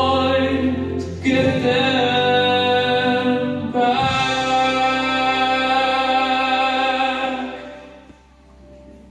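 Closing held chords of a children's song, music with sustained singing or synthesized voices, changing chord twice and fading out over the last second or two.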